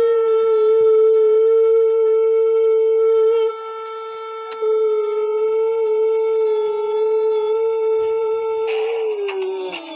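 A long held tone at one steady, slightly wavering pitch with several overtones, briefly quieter for about a second a few seconds in; near the end it turns rough and slides down in pitch.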